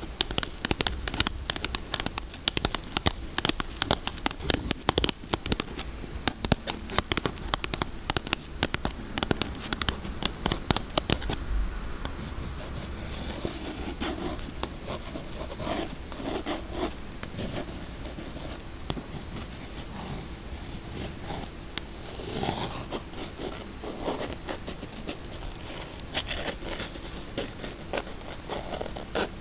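Fingernails scratching and tapping on a bar of soap: fast, sharp, dense scratches for the first ten seconds or so, then softer, slower scratching and rubbing.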